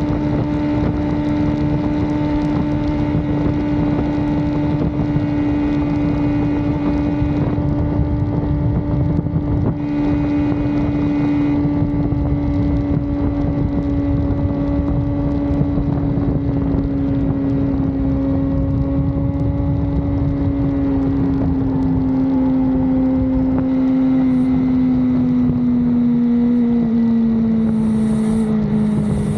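Suzuki GSX-R sportbike engine running at steady cruising revs, with wind noise on the microphone. About twenty seconds in, the engine note slowly drops as the revs come down.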